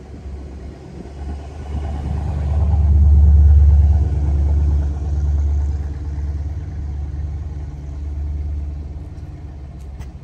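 Low car rumble that swells to its loudest about three seconds in and then slowly dies away.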